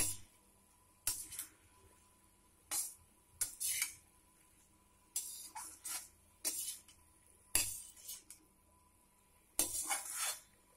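Metal spatula scraping and stirring cut cluster beans in a kadhai, in short strokes about once a second with metallic scrapes and clinks. The cooking water has dried off, so there is no bubbling.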